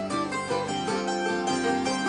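Instrumental break in an Irish-trad-influenced folk song: plucked string instruments playing a melody over sustained chords, with no singing.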